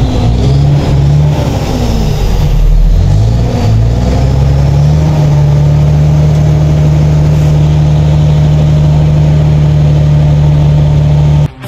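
Howo 380 A7 truck's diesel engine being revved: the revs rise and fall a few times, then are held steady at raised rpm before the sound cuts off abruptly near the end. It is an RPM test after a repair for rough running, hard starting and stalling.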